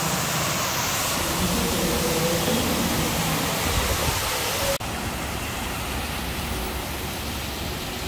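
Indoor waterfall in the Cloud Forest dome, a steady rush of falling water and spray. About five seconds in it cuts off suddenly to a slightly quieter, steady background rush.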